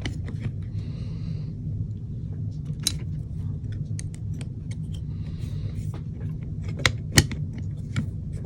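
Scattered light clicks and taps of small metal parts being handled as an airsoft gearbox is fitted back together, with a few sharper clicks near the end, over a steady low hum.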